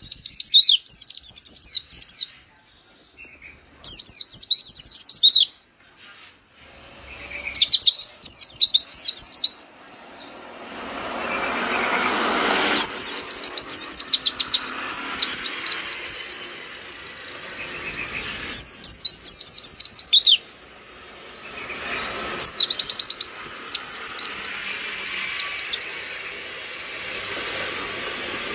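Caged white-eye (pleci) in full 'gacor' song: bursts of rapid, high-pitched twittering chirps, each phrase a second or two long, repeated about every three to four seconds. A soft background hiss swells in the middle of the stretch.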